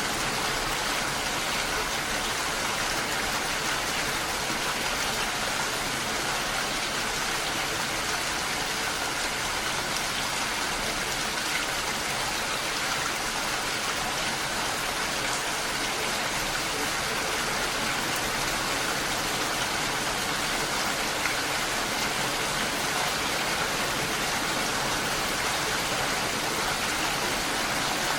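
Steady rain falling, a constant even hiss with no separate drops or breaks.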